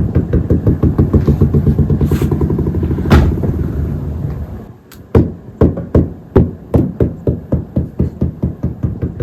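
Rapid, regular knocking with a rumbling hum, speeding up to about five knocks a second, dying away about four and a half seconds in, then starting again more slowly. It is the mysterious midnight noise made by the cat.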